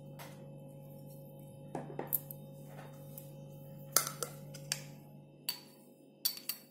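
A steel spoon clinking lightly against a bowl, about eight short taps in small clusters, over a steady low hum.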